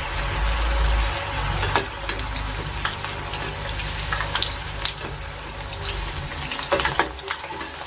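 Cabbage Manchurian batter pieces sizzling as they deep-fry in hot oil, a steady hiss with scattered small pops and clicks. A low rumble runs through about the first second.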